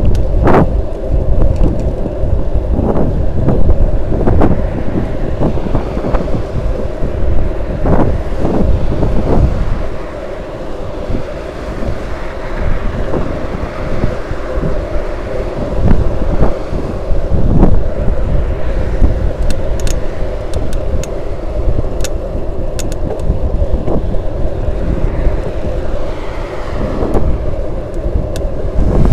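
Strong wind buffeting the microphone of a camera mounted on a moving bicycle, a constant low rumble with a steady hum underneath. A few light clicks come about two-thirds of the way through.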